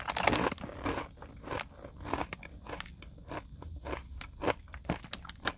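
Crisp, irregular crunching of Beaver Nuggets, a sweet puffed-corn snack, being chewed close to the microphone. A louder crinkle of the plastic snack bag comes right at the start.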